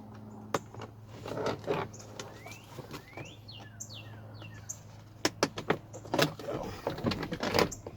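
Sharp plastic clicks and knocks from a car's interior door trim panel being handled and unclipped from its cables and wiring, thickest over the last three seconds. Birds chirp in the background with short rising and falling calls.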